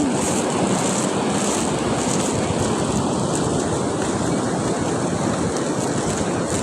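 Steady rush of surf washing onto a sandy beach, with wind buffeting the microphone.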